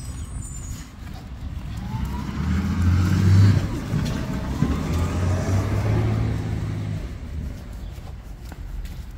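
A motor vehicle driving past, its engine and tyre noise growing to its loudest about three seconds in, then fading away over the next few seconds.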